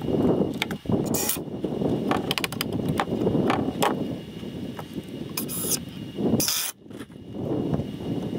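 Scattered knocks and clicks of lumber and a bar clamp being handled and set on a wooden stud-wall frame, over a constant low rumbling noise.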